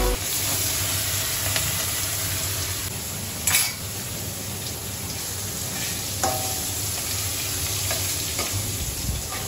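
Turmeric-coated fish pieces frying in hot oil in an aluminium kadai, a steady sizzle. A sharp knock comes about three and a half seconds in, and a shorter ringing metal clink just after six seconds.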